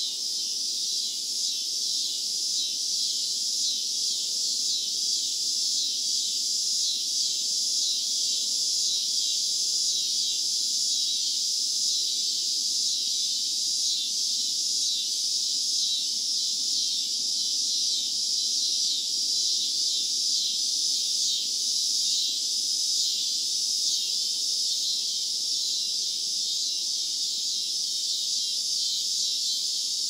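A chorus of many cicadas calling from a tree, one steady, high-pitched buzzing drone that never breaks.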